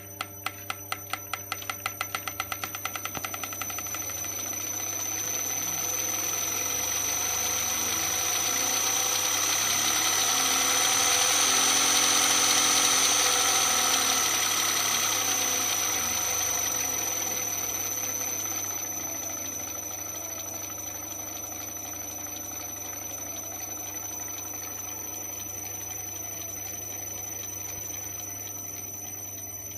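Fuel injection pump of a Walter M337 aircraft engine being run. At first it gives separate quick ticks that crowd together as it speeds up. The sound then swells to its loudest about twelve seconds in and eases back to a steady, lower run.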